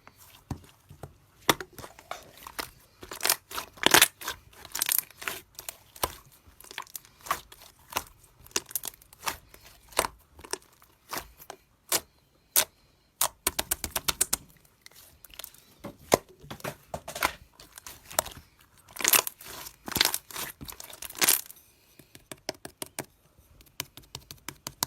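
Clear slime being squished and pressed by hand, giving quick runs of sharp, sticky popping and crackling clicks that come in bunches with short pauses between.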